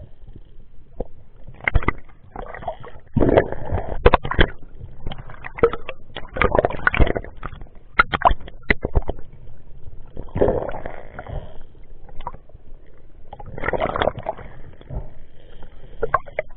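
Muffled water noise from a camera in a waterproof housing, dipping in and out at the surface: irregular sloshing and gurgling bursts with scattered sharp clicks.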